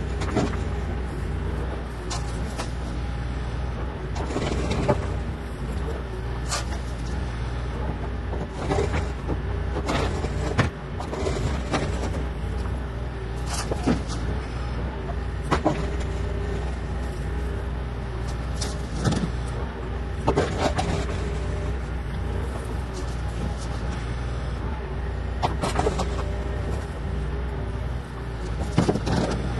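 Bobcat E40 compact excavator's diesel engine running steadily while digging, with frequent sharp clanks and knocks from the bucket and arm working.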